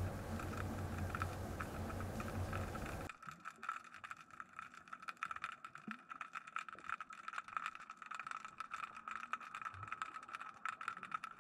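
Muffled underwater sound picked up by a GoPro in its waterproof housing: a steady low rush of moving water. After a cut about three seconds in, it turns to a much quieter, rapid, irregular crackle of clicks.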